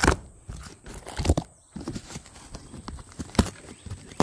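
A damp cardboard box being torn open by hand, the cardboard ripping and rustling, with a few sharp knocks as the box and flaps are handled.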